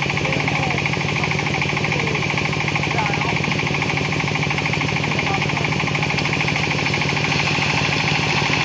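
Diesel engine of a Hitachi ZX200 excavator running steadily, with a rapid, even beat.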